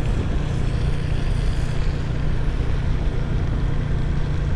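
Motor scooter riding down a long descent on a rain-wet road: a steady low rumble of engine, tyres and wind.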